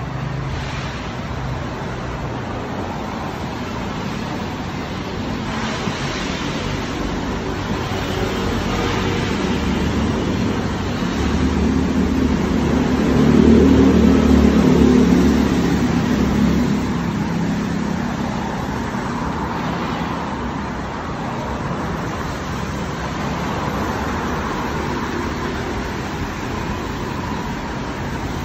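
Steady street traffic on a wet road, with one vehicle passing close by: its engine note swells and is loudest about halfway through, then fades.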